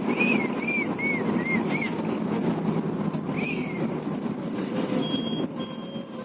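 Bus engine and road noise running steadily, with a quick run of five short high chirping tones in the first two seconds and one more in the middle.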